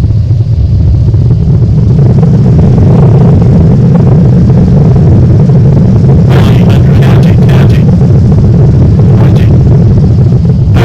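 Loud, steady low rumble of a Boeing 787 airliner heard from inside the cabin during landing. There is a cluster of short clicks about six to eight seconds in and a couple more a little after nine seconds.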